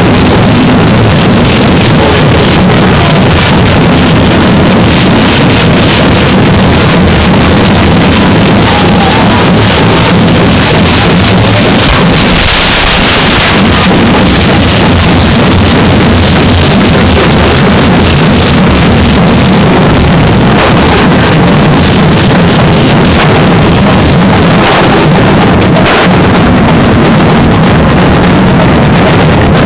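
Hand-held sparking fireworks, of the kind the costumed devils carry, hissing and crackling without a break, loud enough to overload the recording. The hiss swells brighter about halfway through.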